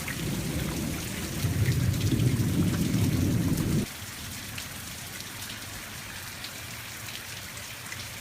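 Heavy thunderstorm rain falling steadily. For the first four seconds a loud, deep rumble sounds over it, then cuts off suddenly.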